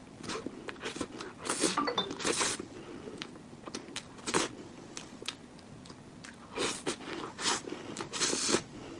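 A person biting into and chewing cake, with crunchy bites and wet chewing. The sounds come in irregular bursts, with two louder clusters: one about a second and a half in, and one near the end.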